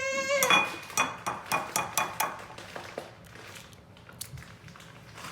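A child's high-pitched whine cuts off, then about ten quick, sharp clinks and taps against a bowl, an egg being knocked to crack it open, followed by a few fainter knocks.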